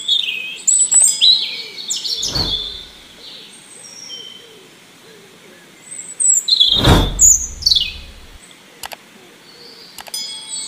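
Birds chirping and twittering, many short high calls and quick falling notes. Two loud rushing sounds cut across them about two and seven seconds in.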